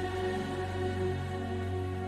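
Slow, soft worship music: sustained keyboard and pad chords over a held bass note, with little or no singing.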